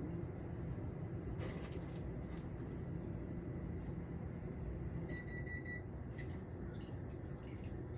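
Steady low outdoor rumble with a few faint, short dog barks from a neighbouring yard, and a brief high tone about five seconds in.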